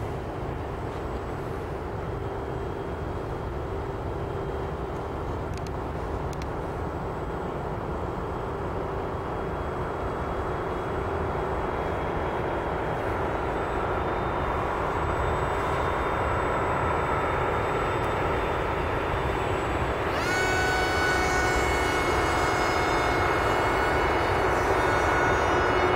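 Electric RC airplane's brushless motor, powered by a 3S LiPo, whining as the plane flies, slowly growing louder. About twenty seconds in the motor speeds up and the whine jumps higher in pitch.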